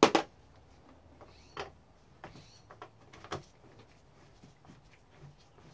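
Workshop handling noise: tools and parts knocking on a workbench, with one loud knock at the start and a few lighter knocks and clicks after it.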